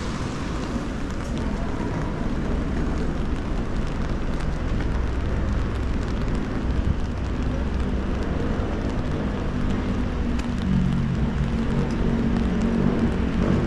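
Rainy city street ambience: a steady hiss of light rain and wet traffic, with faint scattered drop ticks. From about ten seconds in, a vehicle engine hum comes up underneath and grows a little louder.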